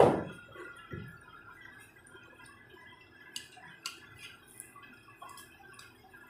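Spoon knocking and clinking against a plate while eating: a sharp knock, a smaller one about a second later, then a few light clicks.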